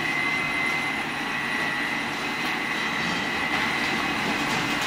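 2D snack-pellet production line (extruder and pellet-cutting machine) running: a steady mechanical noise with a constant high-pitched whine.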